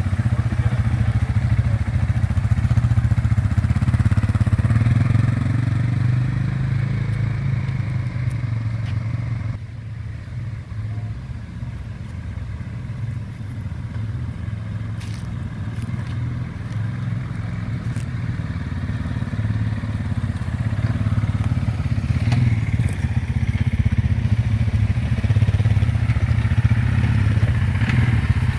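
Police quad bikes (ATVs) running at low speed, a steady low engine drone. It turns suddenly quieter about ten seconds in as the quads are farther off, then grows louder again toward the end as one rides close by.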